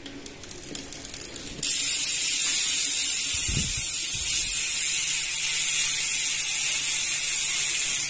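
RT freehub rear hub, three pawls, freewheeling as the rear wheel spins: the pawls click so fast that they merge into a loud, steady, high-pitched buzz. For about the first second and a half the clicking is fainter, then it jumps suddenly to full loudness.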